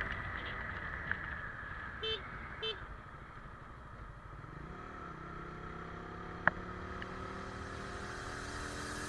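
Motorcycle being ridden, its engine running under a steady rush of road noise. Two short horn beeps come about two seconds in, and from about halfway the engine pitch climbs slowly as the bike speeds up.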